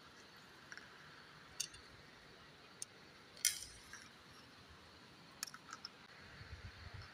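Sparse light clicks and taps from an LED driver box and its wires being handled in an opened LED street-light housing, the loudest about three and a half seconds in. A faint low rumble starts near the end.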